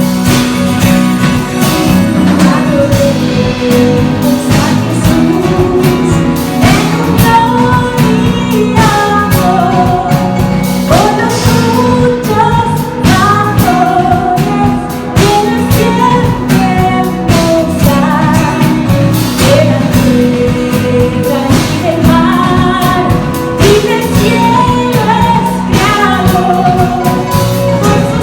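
A church band with singers performing a Christmas hymn: a sung melody over guitar, bass and a steady beat.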